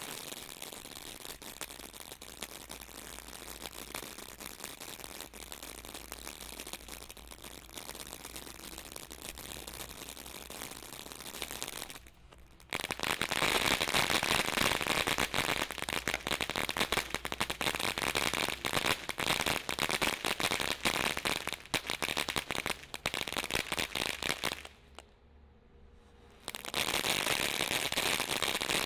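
Brothers House on Fire firework fountain spraying sparks with a dense, fast crackle. After about twelve seconds it drops briefly, then comes back much louder, with another short lull a few seconds before the end.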